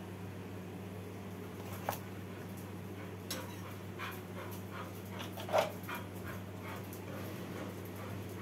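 Knife cutting through a snake gourd on a wooden chopping board: a handful of short, soft cutting strokes over a steady low hum, the loudest stroke a little past the middle.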